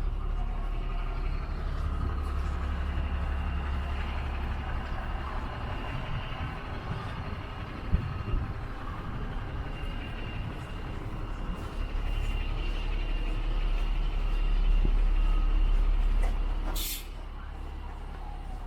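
City street traffic led by a heavy vehicle's low engine rumble, which grows louder and then falls away with a short air-brake hiss near the end. There is a sharp knock about eight seconds in.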